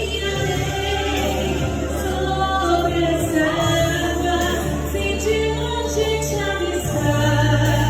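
Gospel song: a woman singing over accompaniment with held low bass notes, the bass moving to a new note near the end.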